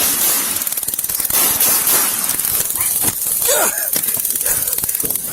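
Body-worn camera microphone rubbing and jostling against clothing during a struggle, a dense scraping rustle with hiss, with a short falling vocal cry about three and a half seconds in.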